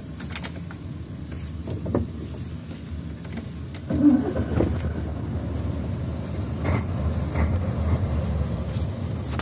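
LIAZ 150.261 truck's diesel engine being started with the key: a low rumble with a few clicks, then about four seconds in the engine catches and keeps running louder and steadily.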